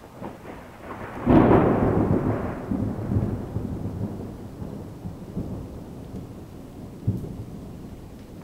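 Thunder: a faint crackle, then a sudden loud clap about a second in that rolls on as a long rumble fading over several seconds, with a few smaller rumbles after it.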